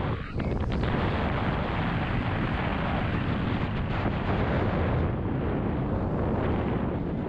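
Loud, steady wind buffeting the bike-mounted camera's microphone during a fast road-bike descent, with a few brief clicks in the first second.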